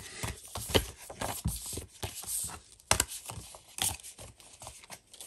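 Paper rustling and a few light knocks and clicks as a folded album poster and printed inclusions are handled and set down on a tabletop, with the sharpest click about three seconds in.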